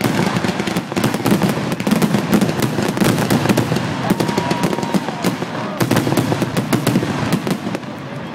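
Fireworks going off in a rapid, continuous barrage of bangs and crackles, many reports a second, with no let-up.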